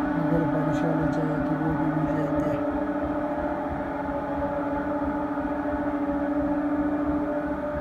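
Steady mechanical hum of machinery running, with several constant whining tones. A lower wavering tone, perhaps a distant voice, runs under it for the first two or three seconds.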